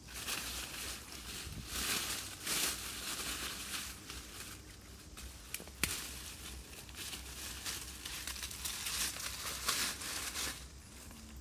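Dry leaf litter and twigs rustling and crackling in uneven bursts as hands work through them on the forest floor, with one sharp click about six seconds in.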